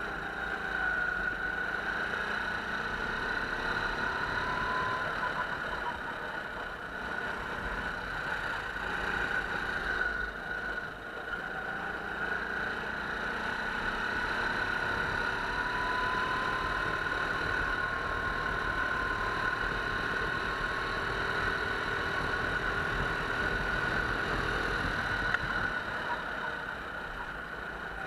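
Go-kart engine heard from on board the kart while it laps the track, its pitch slowly rising and falling as the throttle opens and closes.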